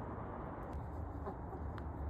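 Dust-bathing hens giving a few soft, scattered clucks.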